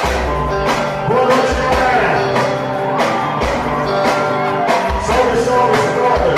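Music playing: a song with singing over a steady beat.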